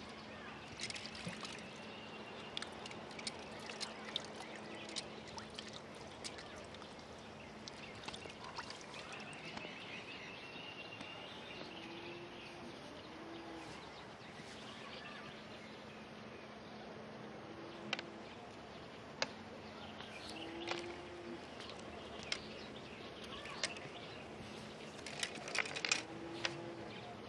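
Water splashing and trickling as a man washes his face by hand, with many small drips and splashes. Birds call now and then.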